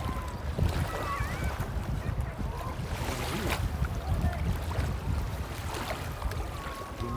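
Seaside beach ambience: a steady wash of waves and wind with a heavy low rumble, and a few faint short pitched calls drifting over it.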